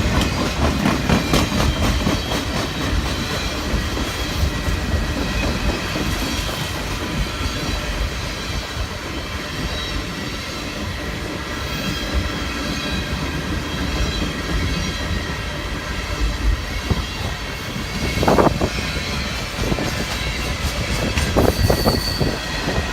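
Freight train cars rolling past close by: steady wheel-on-rail noise with clickety-clack over the rail joints, and a few short wheel squeals near the end.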